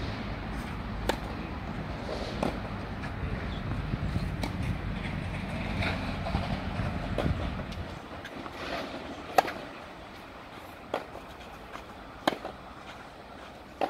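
Tennis ball struck by rackets on a clay court: a serve about a second in, then a rally of sharp pops every one to two seconds, the loudest about nine seconds in. A low background rumble fades about eight seconds in.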